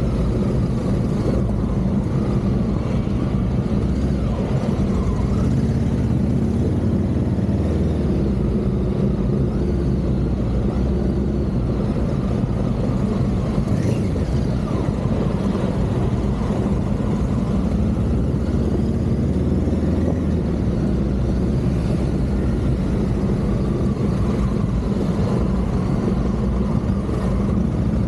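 Honda Africa Twin CRF1100's 1084 cc parallel-twin engine running continuously as the bike is ridden round a dirt track, with small rises and falls in revs.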